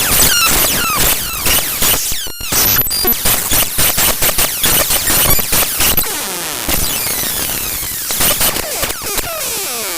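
Raw binary data of the Google Drive DLL drivefsext.dll played back as audio: harsh, dense digital noise full of clicks and rapid falling chirps. It drops out briefly about two seconds in and turns to a smoother, even buzz for a couple of seconds past the middle.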